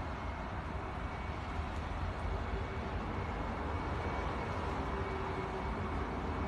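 Steady outdoor background noise: a low rumble under an even hiss, with a faint steady hum in the second half.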